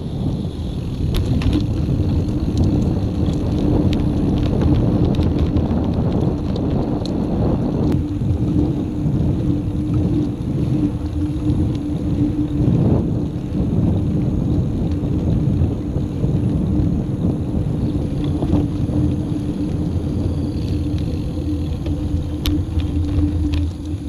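Riding noise from a Brompton folding bicycle: tyres running on a paved path with wind buffeting the mounted camera's microphone, and a few light clicks and rattles from the bike.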